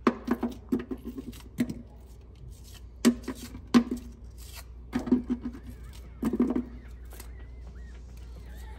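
Onion layers snapped apart by hand and dropped into a stainless-steel slow-cooker insert: irregular clusters of short, crisp knocks and snaps.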